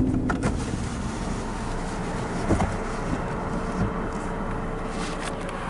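Car engine running at low speed, heard from inside the cabin as a steady low hum, with a faint steady tone and a few light clicks.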